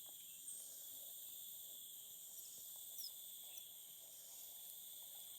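Faint, steady chorus of insects such as crickets, trilling at several high pitches at once.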